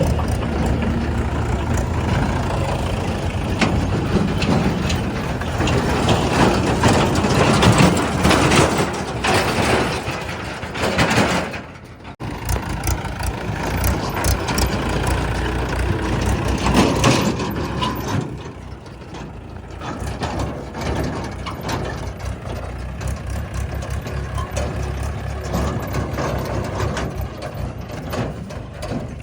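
Diesel engines of a JCB 3DX backhoe loader and a Mahindra 475 DI tractor running, with knocks and clatter between about six and eleven seconds in. The sound cuts out sharply for an instant about twelve seconds in.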